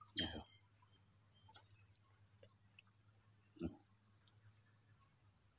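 Steady, high-pitched chorus of insects buzzing without a break.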